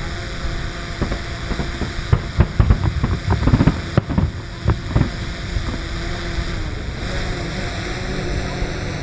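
Distant fireworks going off: a rapid run of deep booms and thumps, thickest between about two and five seconds in, over a steady hum.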